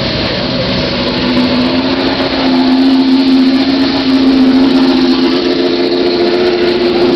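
Classic race car engines running at low revs as the cars roll slowly past: a steady engine note, joined from about five seconds in by a second, higher steady note as the next car comes up.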